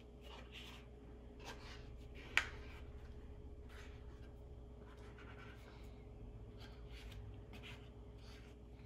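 Faint scraping and rustling of a spatula working ointment out of a flexible plastic weigh boat, with one sharp click about two and a half seconds in.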